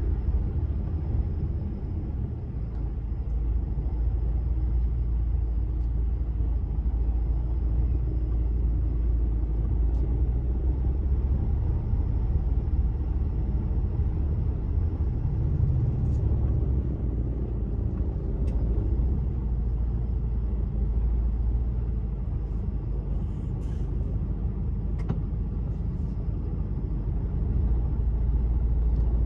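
Mercedes-Benz Actros truck heard from inside its cab, with a steady low engine rumble as it rolls slowly in traffic.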